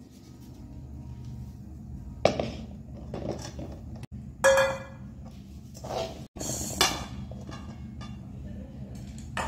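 A metal spatula scraping and knocking against a metal kadai while stirring syrup and flattened rice. There are several separate clatters, one with a short metallic ring, over a steady low hum.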